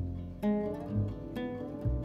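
Background music: plucked string notes, several sharp new notes over a steady low bass line.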